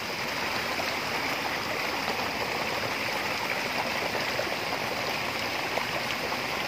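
Steady rush of stream water flowing through and over a mesh net fish trap.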